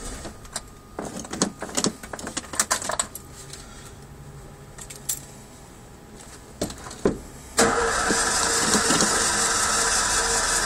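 Car with a hard-starting engine: a few seconds of scattered clicks and rattles, then the engine fires suddenly about seven and a half seconds in and keeps running steadily.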